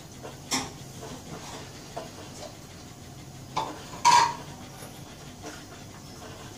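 A few scattered light clinks and knocks of metal kitchenware over a faint steady hiss. The loudest clink, about four seconds in, rings briefly.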